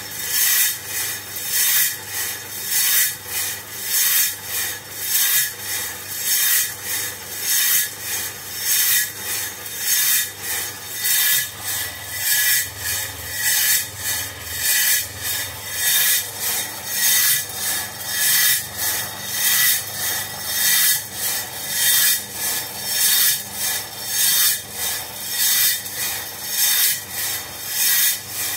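Coffee beans tumbling against the inside of a motor-turned perforated stainless steel roasting drum, a steady rasping rattle that swells and fades about once a second as the drum turns.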